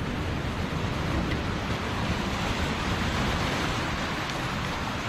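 Steady rushing wash of sea surf breaking around a coastal rock shelf, an even noise with no distinct strokes.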